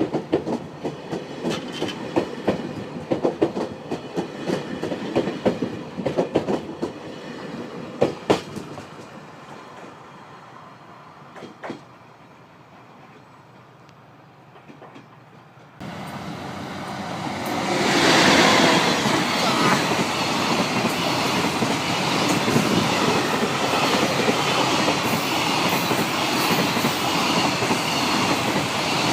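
Wheels of the Seven Stars in Kyushu train clicking over rail joints as it pulls out, the clicks thinning and fading to quiet by about ten seconds in. About sixteen seconds in the sound changes abruptly, and a freight train passes close by with loud, steady noise of wheels on rail.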